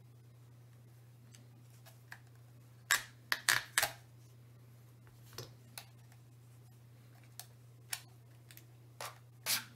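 Sennheiser HD600 plastic headband and its pad being handled and pulled apart by hand: short plastic clicks and rustles, a quick run of four about three seconds in, then scattered single clicks. A faint steady low hum runs underneath.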